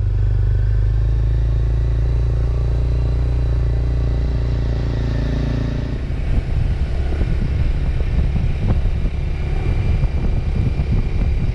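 Kawasaki Ninja 250 SL's single-cylinder engine running while riding, heard from on the bike: a steady, even engine note for about the first half, then a rougher sound that rises and falls unevenly in loudness.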